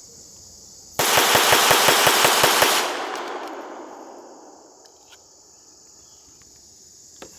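Walther PPQ M2 .22 LR pistol fired rapidly, a fast string of shots at about eight a second for just under two seconds. The shots echo away over the next couple of seconds.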